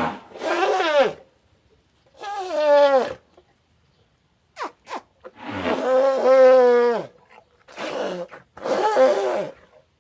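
Elephant trumpeting: a string of separate calls, most about a second long, each sliding down in pitch, with short silences between. The longest and loudest call comes about halfway through.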